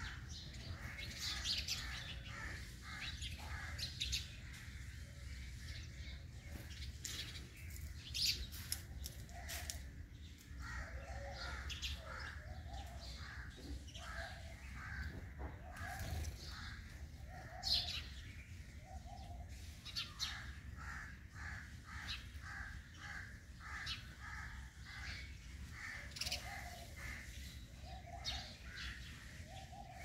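Several birds chirping and calling: sharp high chirps now and then over many repeated lower calls, with a steady low background hum.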